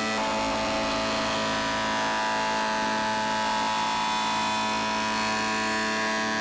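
Electric woodworking machine running steadily with a dense whine while milling teak boards down to thickness; its pitch shifts slightly about a quarter second in.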